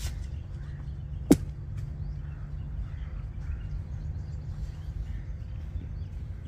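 A single sharp crack about a second in, a cricket ball striking something hard in the practice nets, over a steady low rumble and faint bird chirps.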